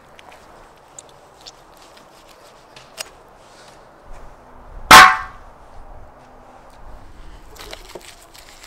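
A single loud, sharp bang with a short ring about five seconds in, among a few light knocks. Near the end, a knife scrapes and cuts through raw bison meat on a wooden board.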